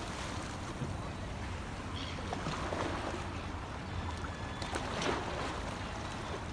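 Sea water washing at a beach: a steady wash of small waves over a low rumble, with a few faint brief clicks and splashes.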